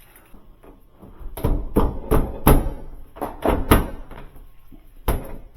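A run of sharp knocks and clunks, two or three a second, as a door panel is handled and fitted back onto a Sub-Zero 736TCI refrigerator door. A second run of knocks starts near the end.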